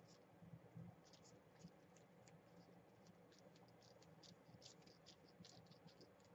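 Fingertips rubbing and pressing on paper: faint, scratchy rustles in quick, irregular little ticks, over a low steady hum.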